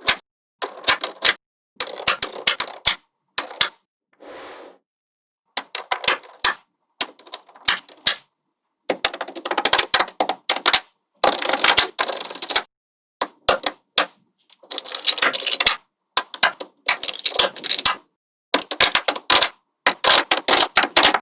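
Small magnetic balls clicking and snapping together in quick rattling clusters, broken by short silent gaps, with a softer rustle about four seconds in.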